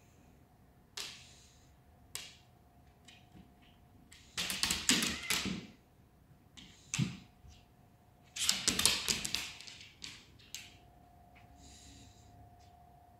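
Goldendoodle's paws and claws scrabbling and clattering on a hard floor during rough play with a cat. There are two longer clattering scrambles, one about four seconds in and one about eight seconds in, with single taps and thumps in between.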